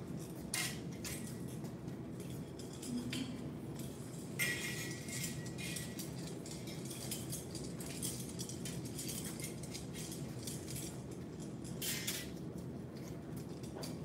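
Pairs of metal butterfly knives (hudiedao) clinking against each other as the form is practised: several sharp metallic clinks, the one about four seconds in ringing briefly, with smaller ticks between, over a steady low hum.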